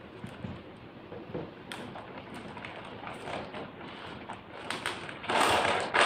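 Thin plastic bag being handled, crinkling in scattered small crackles that build into a loud, continuous rustle about five seconds in.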